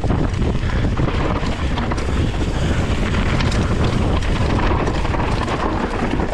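Wind buffeting the action camera's microphone at descending speed, over the mountain bike's tyres crunching on a dry dirt and gravel trail, with frequent small clicks and rattles from the bike over the bumps.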